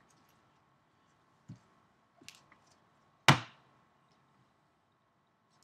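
Trading cards in hard plastic holders and a card box being handled and set down: a soft thump about a second and a half in, a light click after two seconds, and one sharp, loud knock a little past three seconds.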